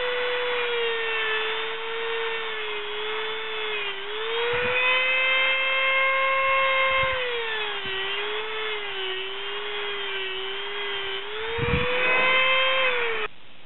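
High-speed rotary tool with an abrasive cut-off wheel cutting through a steel rod: a steady high whine whose pitch sags as the wheel bites into the metal and recovers as it eases off. The whine cuts off suddenly near the end.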